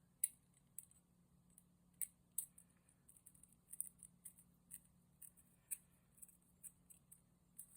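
Faint, irregular small metallic clicks and scrapes of a tiny screw being worked into a tin wind-up toy's body.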